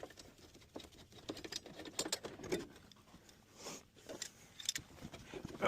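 Scattered light clicks, taps and rustles of hand work on plumbing parts and tools, with no steady rhythm.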